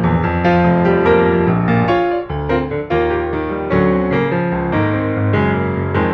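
Background music led by piano or electric piano, playing a series of chords and notes.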